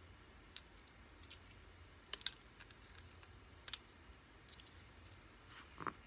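A few scattered, irregular sharp clicks and taps from small gear being handled, with a short rustle near the end.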